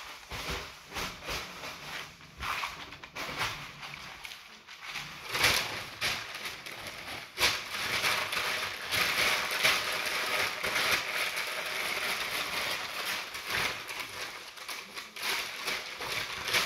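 White packing paper being crumpled and handled, a crinkling rustle with sharp crackles, denser and louder from about halfway through.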